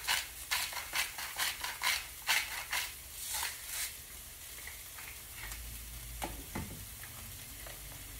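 Broccoli, onion and bell pepper sizzling in a frying pan while being stirred: scraping strokes at about three a second for the first half, then a steady sizzle.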